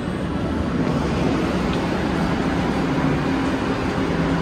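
Steady rumble with a low hum from an R62A subway train standing at the platform.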